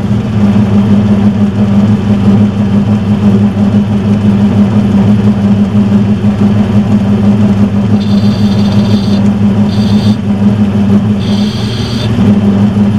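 Metal lathe running steadily with a strong motor hum. Several short high-pitched whines come in over the second half.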